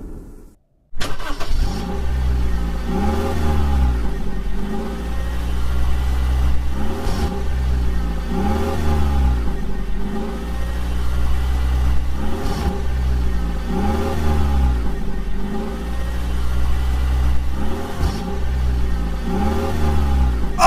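A vehicle engine running steadily, starting about a second in, with its pitch rising and falling again about every second and a half.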